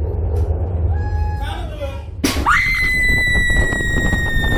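Slingshot ride launching: a sharp crack about two seconds in, then a woman's long, high-pitched, steady scream, over a low rumble.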